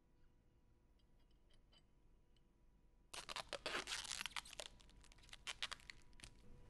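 Blue protective plastic film crinkling and tearing as gloved hands wrap it around a polished metal fitting. After near silence, a dense run of crackling starts about three seconds in, then thins to scattered crackles.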